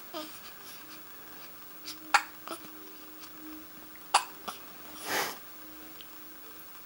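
Hiccups: sharp, short catches about two seconds apart, followed by a longer breathy sound about five seconds in.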